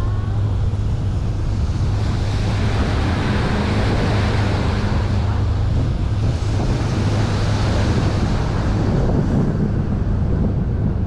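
Small open sightseeing boat under way: its engine runs at a steady low hum while water rushes along the hull and wind buffets the microphone, the rushing growing louder through the middle.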